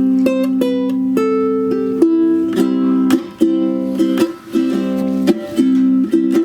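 Ukulele strumming chords in a steady rhythm, an instrumental passage with no singing.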